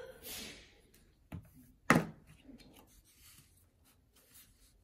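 Glue stick rubbing on paper, then small knocks on a tabletop, the loudest a single sharp knock about two seconds in, with faint taps and rustles as paper circles are pressed down.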